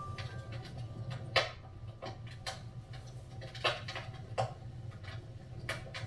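Wood fire crackling in a fireplace: split logs burning with scattered sharp pops, about five louder ones spaced a second or so apart, over a low steady rumble.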